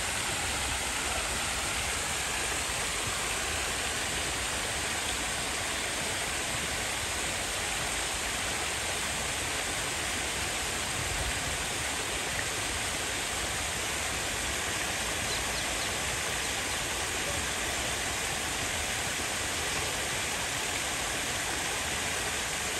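Steady rush of running water: an even hiss that holds throughout without breaks.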